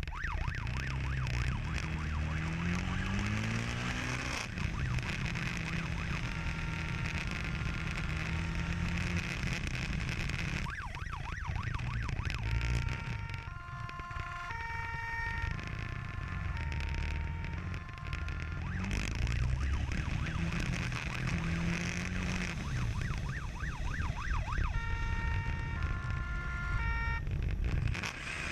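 Police motorcycle engine revving up and down through the gears at speed over steady wind rush, with a two-tone siren sounding on and off.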